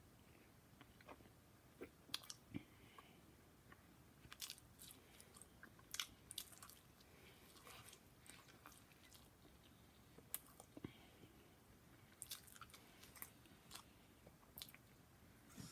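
Close-up, quiet chewing and biting of a slice of pepperoni pizza: irregular wet mouth clicks and smacks.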